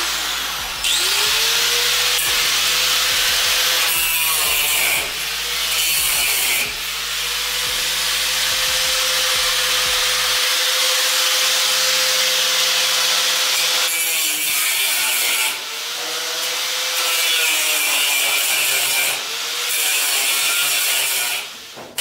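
Corded power saw cutting through the tack welds that hold a steel support brace under a stainless steel table. The motor whine rises as it starts, and the cutting runs in long loud passes with a few short pauses, the pitch sagging and recovering around each.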